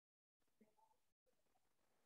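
Near silence on an online call's audio, with the line going completely dead for a moment at the start and again just after a second in.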